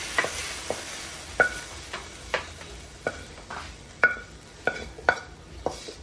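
A spatula scraping and tapping against a metal wok, about two strokes a second, some with a short ring, as fried fish and tomatoes are scraped out onto a plate. A faint sizzle from the hot pan fades in the first second.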